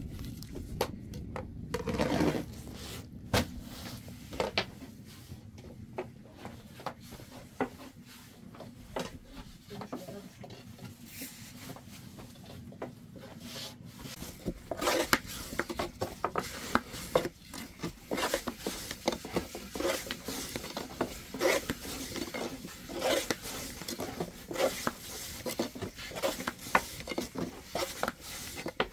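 Long thin wooden rolling pin rolling flatbread dough out on a floured wooden board: rubbing and rolling with light knocks of the pin against the board, coming more often and louder about halfway through.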